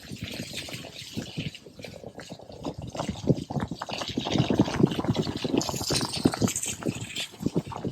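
Water splashing and gurgling in irregular bursts, busier from about three seconds in.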